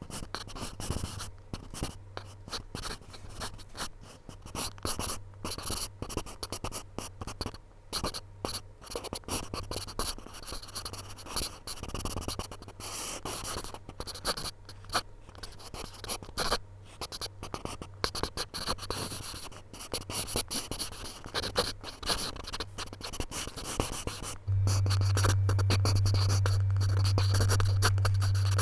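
Pencil scratching on paper in quick, irregular drawing strokes. A steady low hum runs underneath and becomes much louder about three-quarters of the way through.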